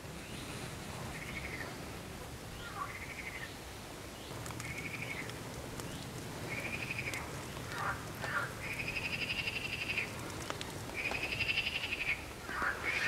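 Frogs calling: a run of trilled calls, short at first and then longer and louder toward the end, over a faint low rumble.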